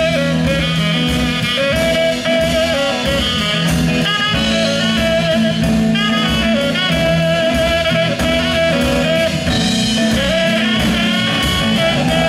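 A saxophone takes an instrumental solo over a live band, with the drum kit keeping a steady beat underneath.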